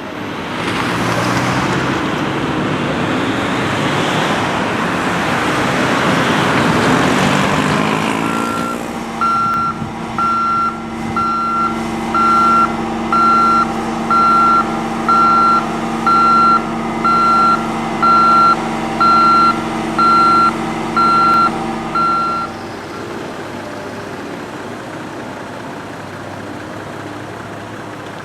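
Heavy construction machine's diesel engine working hard for the first eight seconds or so, its pitch climbing. It then runs steadily while its reversing alarm beeps about once a second, some fourteen beeps, and runs quieter once the beeping stops.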